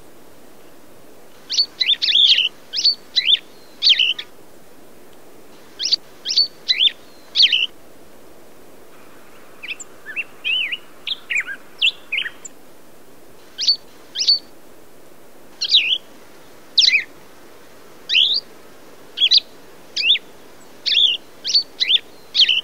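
Songbird calling in short runs of sharp, quickly sliding whistled notes, with gaps of a second or two between runs and a softer, jumbled twitter about ten seconds in.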